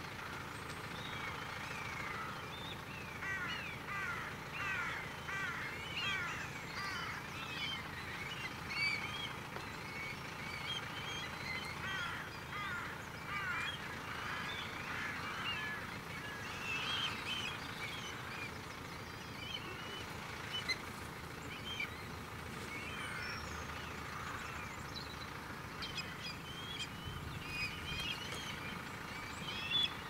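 A large flock of birds calling at a feeding ground, many short rising and falling calls overlapping without a break, with a farm tractor's engine running low and steady underneath.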